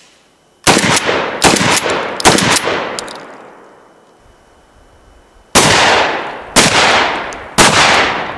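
Mossberg 500 pump-action shotgun fired in quick succession: three loud shots under a second apart, then after a pause of about three seconds three more about a second apart, each shot trailing off in a long echo.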